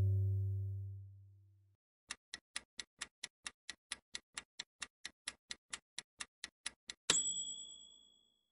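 Acoustic guitar music fades out in the first second or so, then a countdown timer ticks about four times a second for roughly five seconds and ends with a single bright bell ding that rings out for about a second.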